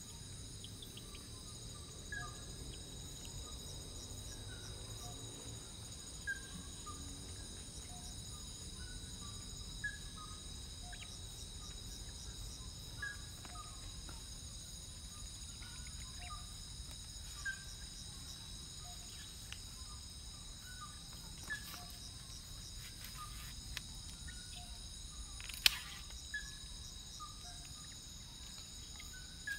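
Night chorus of crickets and other insects: a steady high trill at several pitches. Short, lower call notes from another animal recur every second or two, and there is one sharp click about 26 seconds in.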